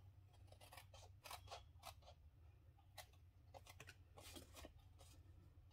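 Small paper scissors cutting cardstock along the score lines: a series of short, quiet snips, irregularly spaced, over a low steady hum.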